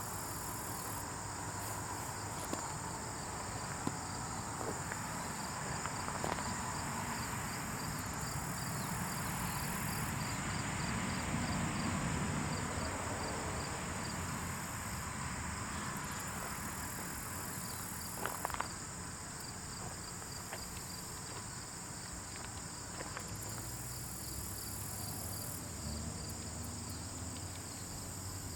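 Insect sound effect billed as ants building a colony: a steady high-pitched trill with a rapid row of repeated chirps above a rustling hiss, with a few faint ticks scattered through it.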